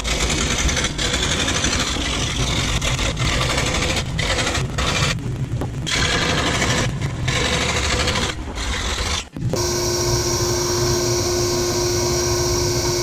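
Scroll saw cutting plywood along curved layout lines, with a few brief pauses. About nine seconds in it cuts off and a belt sander takes over, running with a steady hum.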